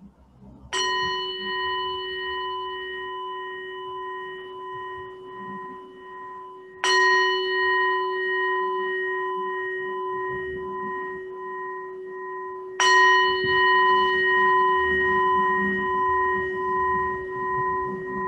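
Singing bowl struck three times, about six seconds apart, each strike ringing on with a slowly wavering hum and the last strike the loudest, marking the close of a meditation session.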